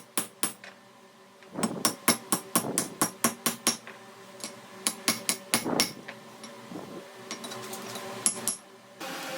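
Hand hammer striking metal in quick runs of blows, about four a second, with short pauses between the runs.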